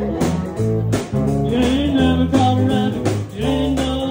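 Background music: a song with guitar, singing and a steady drum beat.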